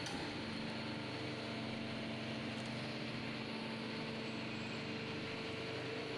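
Horizontal sawdust baling machine running: a steady mechanical hum with several held tones over a constant hiss.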